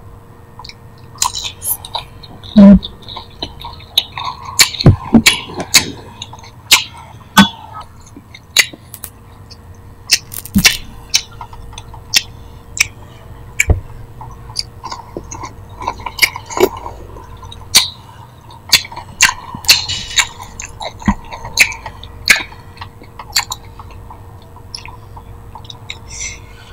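A person eating close to the microphone: lettuce with grilled beef and raw vegetables, with crisp crunches and wet mouth clicks in an irregular run. One crunch is especially loud about three seconds in.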